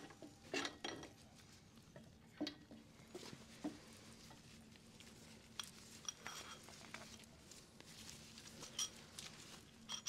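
Scattered small metallic clicks and knocks of a long steel tool and parts being handled at a motorcycle's front wheel axle, with a faint steady hum underneath.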